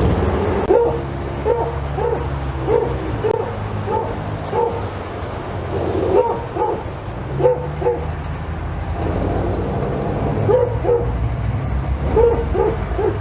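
A dog barking in three quick runs of short barks, about two a second, with pauses between the runs, over a steady low hum.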